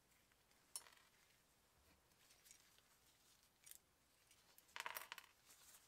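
Faint handling sounds of gloved hands working on an opened Zune player: a light click a little under a second in, another short one near four seconds, and a brief cluster of small clicks and scrapes near the end.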